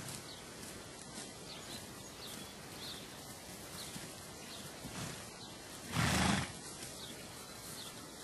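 A foal gives one short, breathy call about six seconds in, against faint chirping birds.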